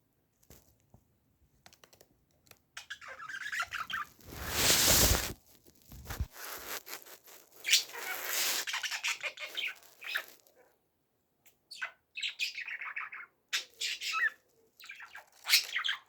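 Birds chirping and squawking in irregular bursts, with one loud noisy rush about five seconds in.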